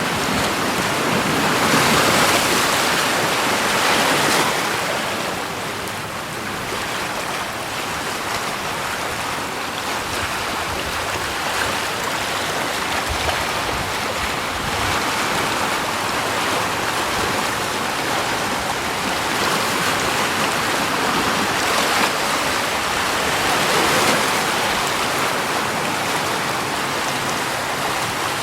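Continuous rush of running water, swelling and easing every few seconds.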